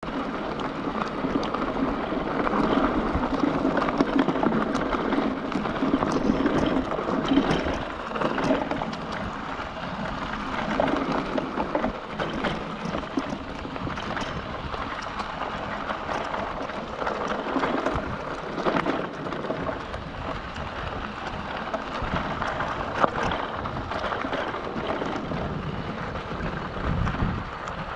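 Mountain bike rolling down a rocky forest trail: tyre noise over stones and the bike rattling, with frequent small knocks and clicks.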